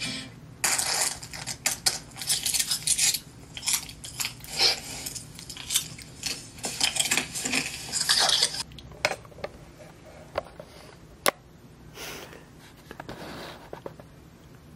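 A person eating a banana close to the microphone: quick, crowded bites and chewing for about eight seconds, then a few scattered clicks, one sharp click near the end.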